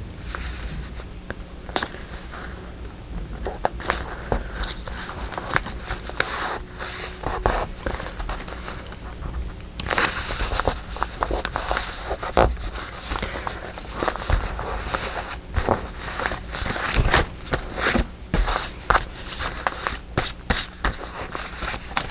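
Paper and craft materials being handled on a desk: rustling, scraping and crinkling with many small taps, busier from about halfway through.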